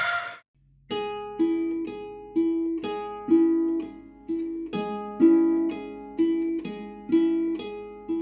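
Slow instrumental music on a plucked-string instrument begins about a second in, after a brief silence, with single notes picked about twice a second over a low sustained bass note.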